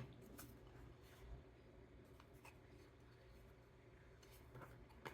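Near silence: room tone with a few faint light ticks and rubs from craft-kit packaging being handled.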